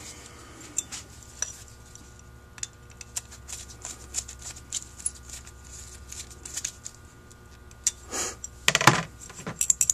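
Light metallic clicks and ticks as a screwdriver works a small plug into a Holley 1904 carburetor casting, the screwdriver tip and loose parts tapping the metal, with a louder scrape and clatter near the end.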